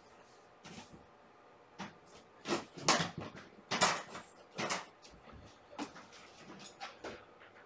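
A run of short knocks and clatters, several in quick succession, loudest around three to four seconds in, with lighter scattered taps around them.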